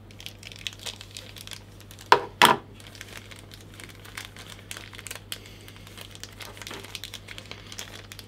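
Small plastic packet of welder contact tips crinkling and rustling in the hands as it is handled and opened, with two sharper, louder crackles about two seconds in.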